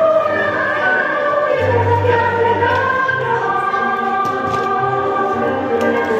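Music with choir-like singing: voices holding and gliding between long notes over a low bass note.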